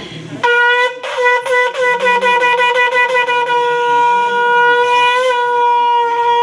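Conch shell (shankh) blown in one long, steady note that starts about half a second in, with rapid clicks over its first few seconds.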